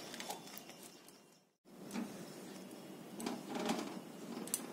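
A spatula stirring and scraping thick chushi payesh around a metal kadai, in short irregular strokes, broken by a brief dead silence about a second and a half in.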